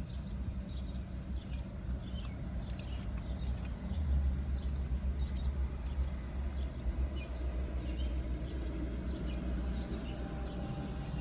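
Small birds chirping in short, repeated calls over a steady low rumble that grows louder about four seconds in.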